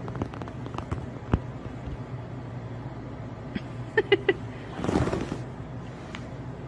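Steady low hum with a few faint clicks; about four seconds in, three short high chirps in quick succession, then a brief rustle of bedding.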